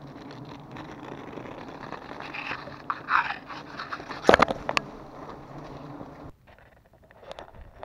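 A knife scraping and crunching through a wild giant honey bee comb over a steady low hum of bees. A cluster of loud sharp cracks comes about four seconds in, and the sound drops away about six seconds in.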